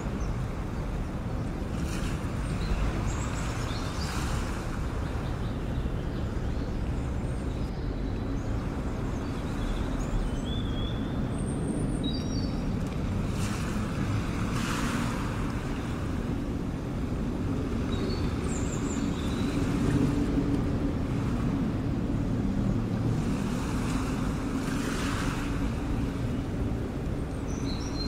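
Seaside ambience: a steady low rumble, with waves washing in every few seconds and a few short, faint bird chirps.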